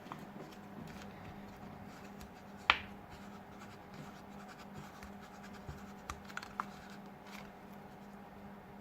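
Small hand tools scraping and clicking against a smartphone's parts during disassembly, with one sharp click nearly three seconds in and three lighter clicks a little after six seconds; a faint steady hum runs underneath.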